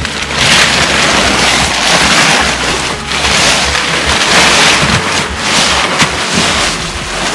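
Clear plastic tarp rustling and crackling loudly in repeated swells as it is pulled over a seedling tray and tucked in at the edges.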